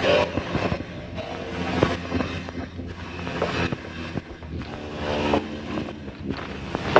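Experimental drone sound collage: a steady low hum with held tones, overlaid by irregular knocks, scrapes and swelling rushes of noise.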